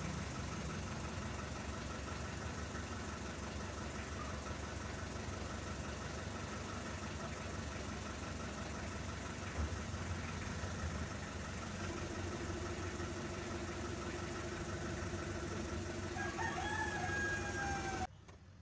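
Steady low rumbling background noise, with a rooster crowing once near the end before the sound cuts off abruptly.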